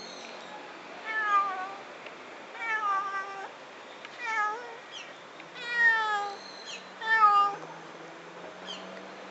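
A black-and-white cat meowing five times in a row, each meow sliding down in pitch, the last ones the loudest.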